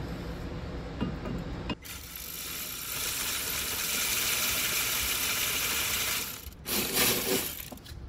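Metal clinking and scraping of a brake caliper and its bolts being handled and fitted onto the caliper bracket. An even hiss-like noise starts abruptly about two seconds in and stops abruptly past the six-second mark, followed by a short burst of noise.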